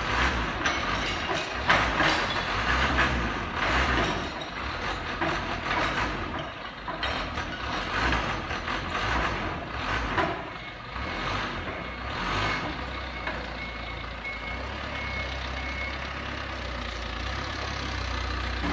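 Toyota forklift engine running, with knocks and clatter over the first few seconds as it works at the truck bed. Later a high reversing-alarm tone sounds for a few seconds as the forklift backs away.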